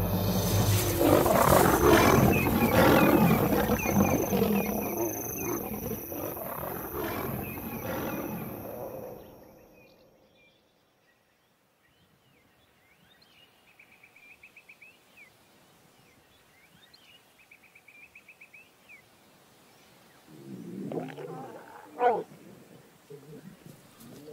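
Lions roaring and snarling loudly in a night fight, an attack by nomadic males, fading out about nine seconds in. Faint bird calls follow, then a short low call near the end.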